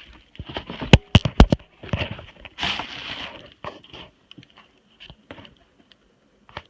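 Cardboard sneaker box being handled during an unboxing: a quick run of sharp knocks about a second in, the loudest sounds here, then rustling of cardboard and paper that thins out toward the end.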